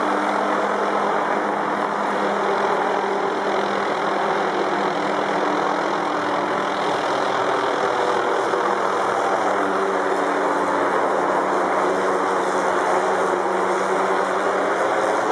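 Helicopter flying overhead: a loud, steady engine drone with a few low hum tones that drift slightly in pitch.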